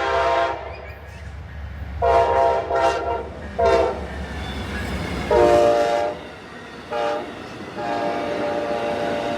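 Amtrak P42 locomotive's air horn sounding a series of long and short blasts as the passenger train approaches and passes, over the rumble of the train. Its pitch drops during one blast midway as the locomotive goes by.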